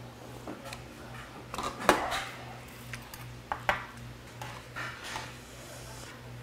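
Metal ladle and chopsticks clinking against a pot of stew: a few sharp clinks, the loudest about two seconds in, over a steady low hum.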